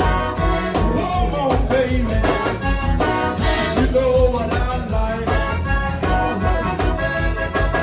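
Live zydeco band playing: accordion over electric bass and drums, with a steady dance beat.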